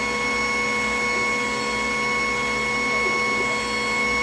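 Glowforge Plus laser cutter running a cut job in birch plywood: a steady whirring hum with several high steady tones from its fans and motors.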